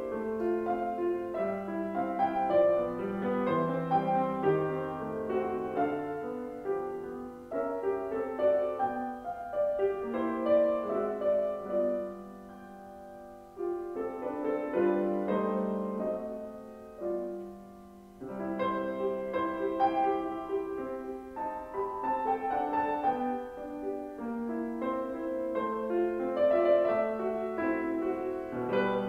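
Grand piano played solo: a flowing piece of melody over chords, with held notes left to die away twice around the middle.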